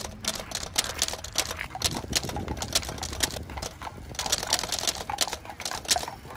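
Hooves of a pair of carriage horses clip-clopping on wet pavement: a quick, irregular run of sharp clacks.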